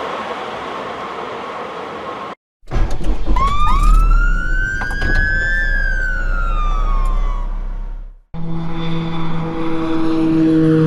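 Three sound effects in a row, separated by brief cuts: a steady rushing noise, then a siren wailing up and then down in pitch over a low engine rumble for about five seconds, then a steady engine drone with several held tones starting near the end.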